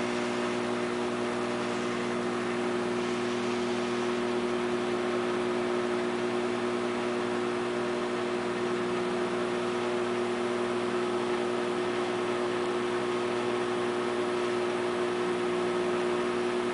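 Microwave oven running: a steady electrical hum over an even hiss, unchanging throughout.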